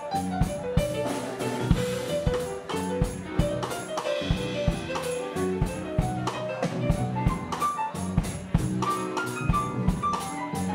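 Live jazz: piano playing quick runs of notes over drums and percussion keeping a steady, busy beat.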